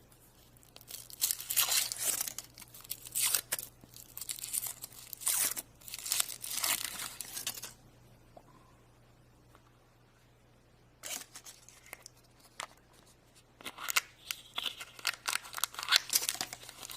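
Wrapper of a chocolate surprise being torn open and crinkled by hand in irregular bursts, pausing for a few seconds in the middle before the crinkling resumes.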